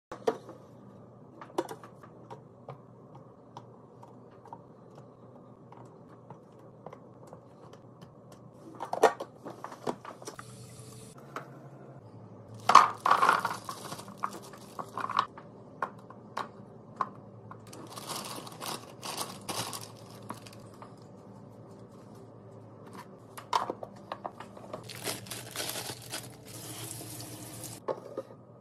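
Fridge restocking and cleaning handling sounds: containers and dishes set down and clinking in sharp, scattered clicks, with three longer hissing bursts of about a second or two, over a steady low hum.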